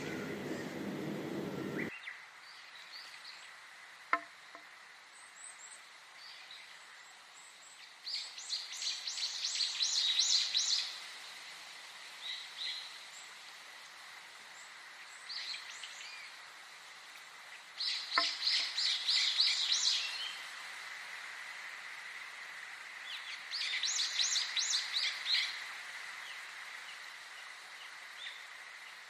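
Songbird singing three bursts of rapid repeated high notes, each lasting two to three seconds, with a few short single calls between them over a steady faint high tone. A low-pitched sound cuts off abruptly about two seconds in.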